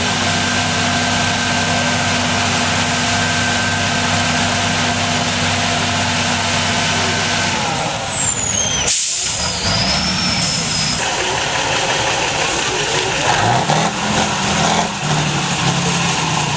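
Diesel engines of off-road trial trucks. One runs at a steady low note for the first half. About nine seconds in comes a short, sharp hiss of air like an air brake venting. Near the end an engine revs up and down.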